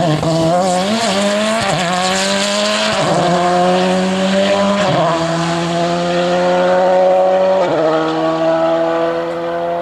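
Volkswagen Polo rally car engine accelerating hard. Its pitch climbs through each gear and drops at each of several quick upshifts.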